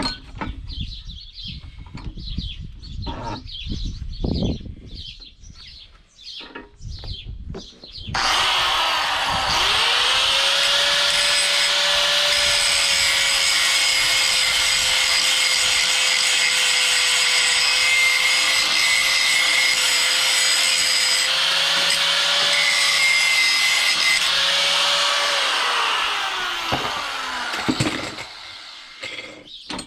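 Scattered knocks of a steel piece being handled, then an electric grinder switched on about 8 seconds in, spinning up and grinding steel steadily for about 18 seconds before it is switched off and winds down near the end.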